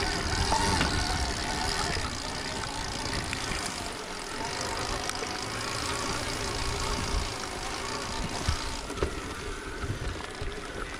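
Stark Varg electric dirt bike being ridden over bumpy ground: a steady electric motor whine under chain and running-gear noise, with a few sharp knocks in the second half as the bike hits bumps.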